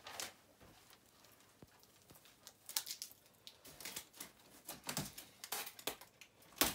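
Plastic packing tape being pulled and peeled off a cardboard box to open it: an irregular crackling with short ripping clicks, the sharpest crack near the end.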